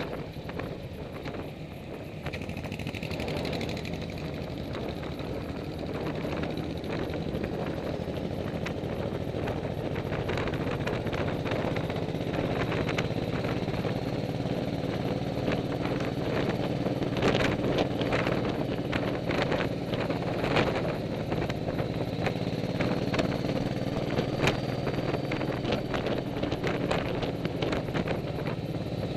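Motorcycle engine running steadily at road speed, heard from the rider's seat behind the windshield, with rushing wind noise over it; it grows louder a few seconds in and then holds.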